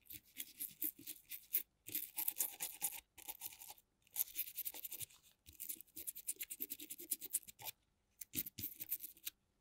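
Toothbrush bristles scrubbing across the connector of a GoPro Hero 3+ I/O circuit board: quick scratchy strokes in about six runs, separated by short pauses.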